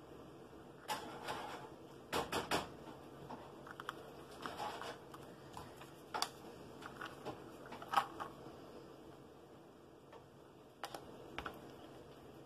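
Scattered small clicks, taps and light rustles of hands handling craft pieces on a tabletop, with a quick cluster of three clicks about two seconds in.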